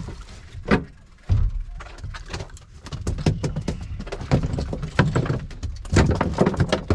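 Rapid clatter of knocks and thumps as a hooked mackerel is swung aboard a small boat and handled, growing busier about six seconds in, over a low wind rumble on the microphone.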